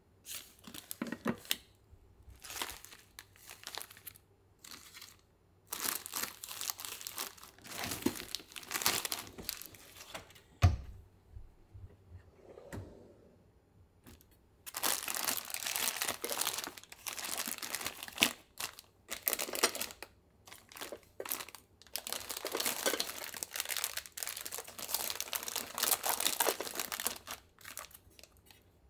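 Plastic snack packets and wrappers crinkling in irregular bursts as they are handled and shifted inside a kitchen drawer. A single knock about ten seconds in.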